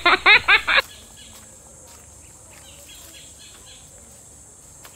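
A man speaking Tagalog for the first second, then quiet rural outdoor ambience with a few faint bird chirps around the middle.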